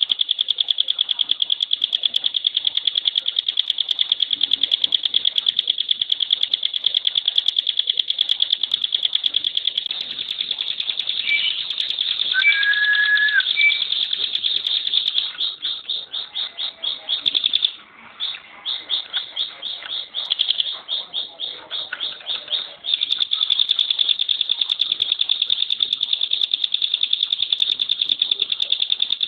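Ciblek pinus (a mountain prinia) singing its rattling "tembakan" song: a high, very fast, dense trill held for long stretches. About halfway through, the trill breaks into choppy groups of notes with a brief pause, then runs on unbroken again near the end. A few separate chirps and a short whistle come in just before the middle.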